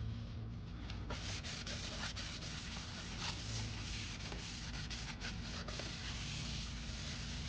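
A rag being rubbed over the face of a resurfaced flywheel to wipe it clean. It is a steady scrubbing hiss made of many quick strokes, starting about a second in.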